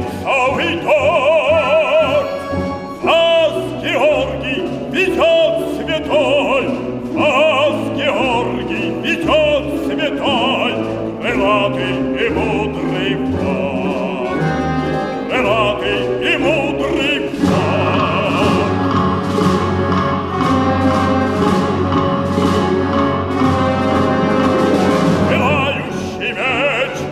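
A Russian folk orchestra of domras, balalaikas and bayans accompanies a classically trained male soloist who sings with a wide vibrato. About two-thirds of the way through, the accompaniment swells into a fuller, sustained chord with a stronger bass.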